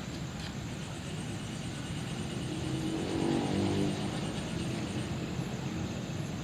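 A motor vehicle passing close by: its engine note swells to a peak about halfway through, then fades, over steady low background noise.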